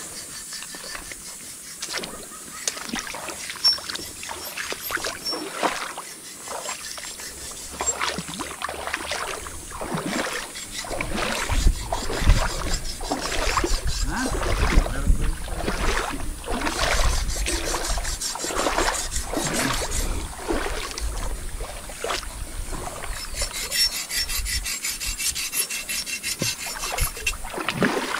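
Irregular splashing and sloshing of river water with rubbing and knocking close to the microphone, louder and with a low rumble through the middle stretch.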